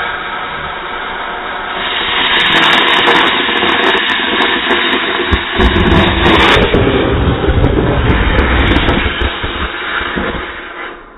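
A firework burning inside a plastic R2-D2 egg with a loud, steady hissing rush of sparks. The rush grows louder about two seconds in, with sharp crackles throughout. There is one sharp pop about five seconds in, then the spray dies away near the end.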